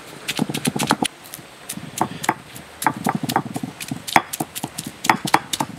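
Heavy stone roller crushing whole shallots on a flat grinding stone: irregular sharp knocks of stone on stone with crunching, in quick clusters.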